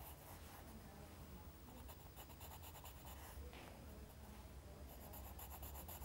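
Faint scratching of pencil strokes on sketch-pad paper, over a steady low hum.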